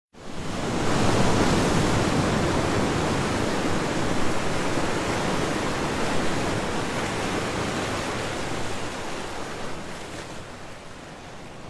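Ocean surf sound effect: a steady rushing wash of waves that swells in within the first second and then slowly fades away.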